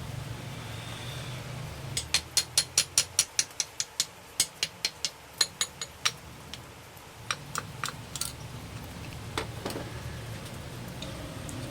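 A quick run of sharp clicks, about five a second for some four seconds, then a few scattered clicks and a duller knock, over a low steady hum.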